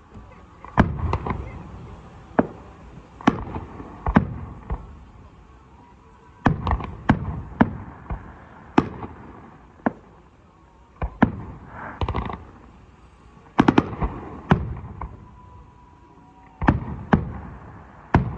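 A fireworks display: aerial shells bursting in a run of sharp bangs at irregular intervals, roughly one a second, each trailing off as it echoes. A quick triple bang comes a little past two-thirds of the way through.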